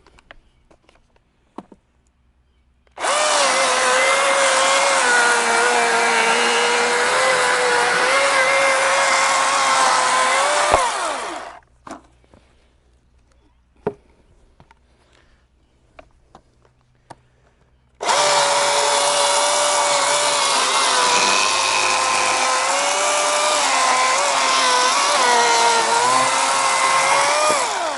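Milwaukee M18 Fuel battery chainsaw cutting through wood in two long runs, its electric motor's whine dipping and wavering as the chain bites, winding down at the end of the first run. Quiet with a few clicks between the two runs.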